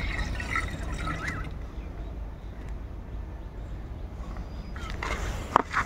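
Date palm sap being poured from one clay pot into another: a soft trickle over a steady low rumble, with a few knocks near the end.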